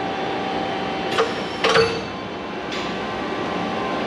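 Takamaz XW130 CNC lathe's automation at work, with the part-turning device flipping a part: a steady machine hum broken by two sharp metallic clacks with a short hiss, about a second in and just before two seconds, then a lighter click near three seconds.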